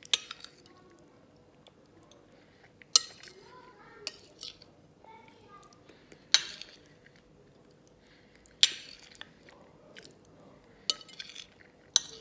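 Metal fork clinking and scraping against a glass plate, about six sharp clinks two to three seconds apart.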